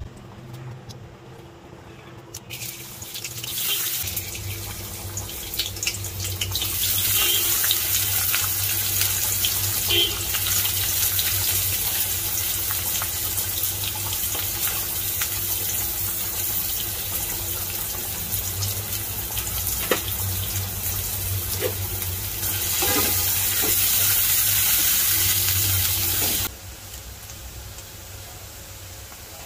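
Sliced onions sizzling in hot oil in a wok: a steady frying hiss that starts a few seconds in and drops quieter near the end.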